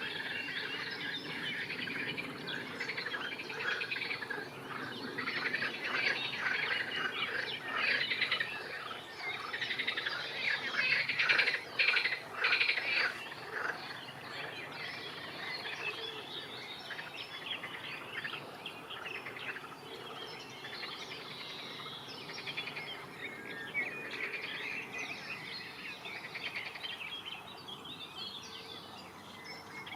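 Songbirds chirping and singing in a busy chorus of many overlapping short calls, loudest about halfway through.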